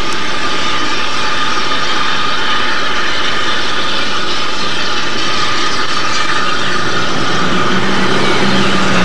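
Steady, loud rushing noise of a train running, with a low droning tone joining in about seven seconds in.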